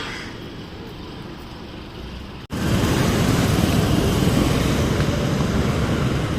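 Steady rushing noise of vehicle travel, road and wind noise with no clear engine note. It jumps abruptly louder about two and a half seconds in.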